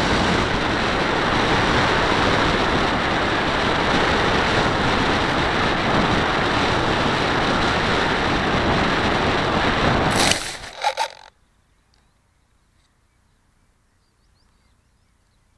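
Wind rushing over the wing-mounted camera of an RC plane flying low. About ten seconds in it touches down in long grass with a few bumps and scrapes, and the rushing stops abruptly, leaving faint bird chirps.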